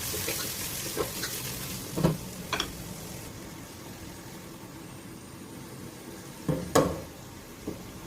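Food frying in hot oil with a steady sizzle, softer after about three seconds. A spoon stirs and scrapes against the pan a few times, loudest near the end.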